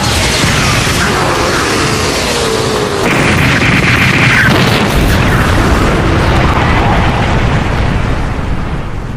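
Explosion sound effects: a continuous rumble of booms that swells into a big blast about three seconds in, then dies down near the end.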